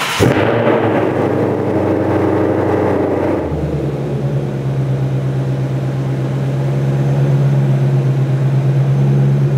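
2021 Shelby GT500's supercharged 5.2-litre V8 just after a cold start, running at high revs. About three and a half seconds in it drops to a steady, lower fast idle.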